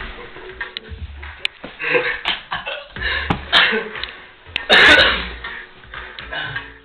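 Large dog barking in short, separate barks, a few in all, the loudest about five seconds in: a reaction to the words "my love".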